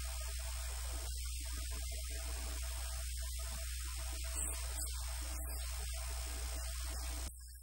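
Steady electrical mains hum with a layer of hiss from an open microphone line; the hum drops in level about seven seconds in.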